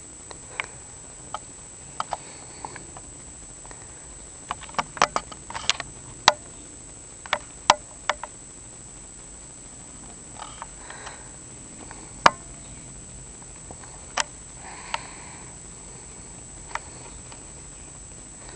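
Scattered sharp little clicks and soft fabric rustles as a long-haired Syrian (teddy bear) hamster scrambles over a bed comforter. The clicks bunch together a few seconds in, then come singly.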